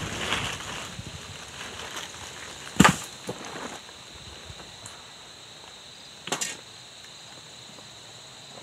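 Footsteps on dry dirt, then a wooden pole thrown down onto the ground with one loud knock about three seconds in, and a second, smaller knock a few seconds later. A steady high insect drone runs underneath.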